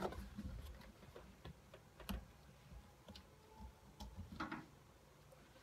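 Faint, irregular clicks and taps of plastic MALICE clips being pried loose from a nylon pouch's webbing by hand, the two strongest about two seconds in and near the end.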